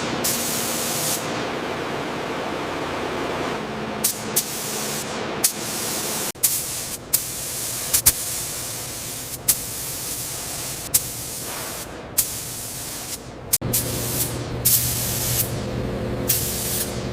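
Paint spray gun hissing steadily as it sprays, over a low steady hum, with short sharp clicks every second or so.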